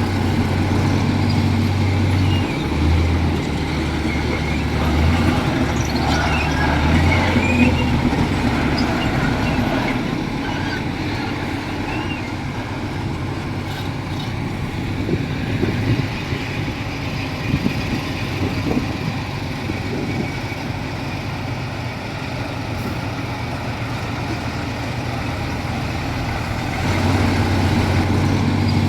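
Komatsu D31P bulldozer's diesel engine running while working, a steady low drone that shifts up and down in pitch as revs and load change. It is louder in the first ten seconds and again near the end.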